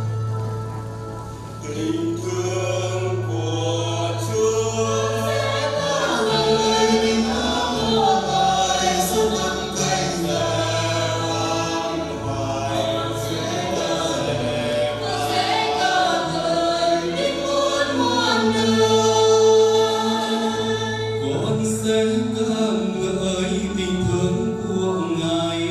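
Church choir singing a hymn in several voices over long held bass notes from an accompanying instrument.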